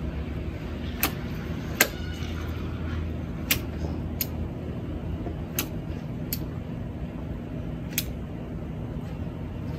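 Caulking gun being worked while sealing a window frame: about seven sharp clicks from its trigger and rod, mostly in pairs a second or so apart, over a steady low hum.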